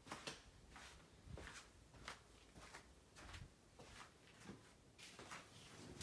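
Faint footsteps indoors, about two a second.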